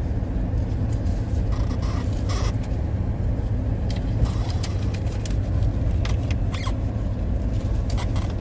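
Steady low rumble of a car heard from inside the cabin, with a few faint clicks and squeaks scattered through it.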